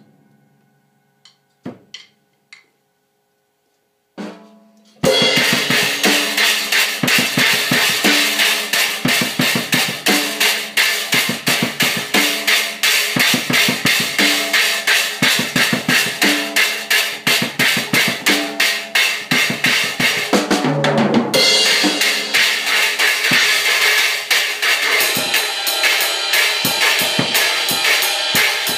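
Drum kit played fast and loud: rapid bass drum and snare under a constant wash of cymbals. It starts about five seconds in after a few scattered taps, and the cymbals grow heavier about two thirds of the way through.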